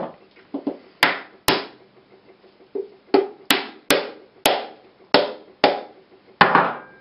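A whole hand-held coconut struck repeatedly with a small metal hammer: about a dozen sharp knocks with a short ring after each, coming faster in the second half. The blows are cracking the hard shell so it splits in two.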